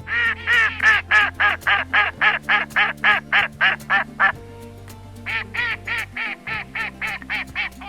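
A duck quacking in two rapid runs of quacks, about four a second, with a short pause between the runs, over background music.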